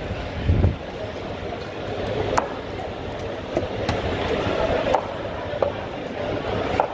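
A butcher's knife knocking on a cutting board while cutting up tuna: about half a dozen sharp knocks spaced irregularly, with a duller thump about half a second in, over a steady background din.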